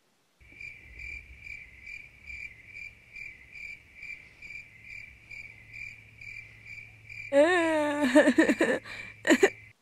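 Cricket chirping steadily, about two chirps a second. About seven seconds in, a person breaks into a loud, high-pitched crying wail over it.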